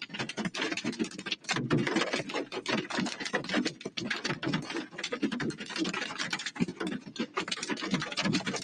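Tornado-force wind hurling debris and rain against a car, a dense, rapid rattle of impacts on the body and windshield over rushing wind.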